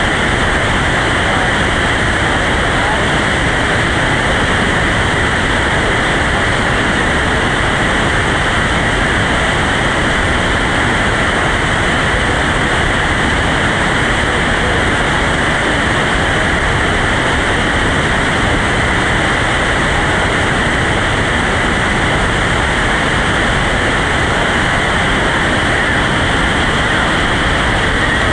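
Loud, steady roar of a whitewater rapid, river water pouring over and around boulders, unbroken throughout.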